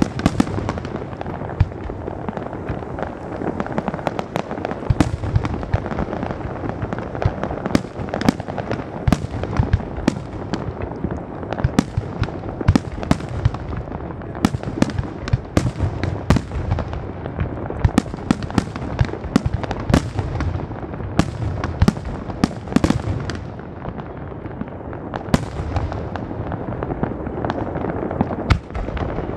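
Fireworks display: aerial shells bursting in a fast, unbroken run of sharp bangs, often several a second and overlapping, over a continuous din of crackle.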